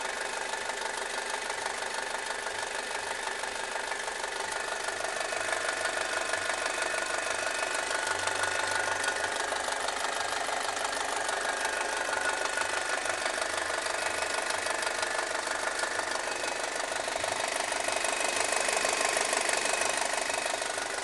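Audi 2.0 TFSI turbocharged four-cylinder petrol engine running warm, with a fast steady clacking and rattling over the engine note. The owner asks whether this noise is normal. It grows a little louder about five seconds in.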